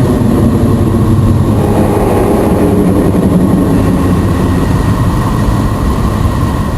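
Neptune's space sound: radio and plasma wave data converted into audible frequencies. It plays as a loud, steady, dense low rumble with a hiss over it and cuts off suddenly near the end.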